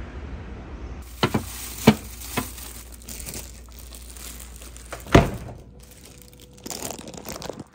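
Plastic crinkling and a few sharp knocks as things are handled at an open refrigerator, the loudest knock about five seconds in.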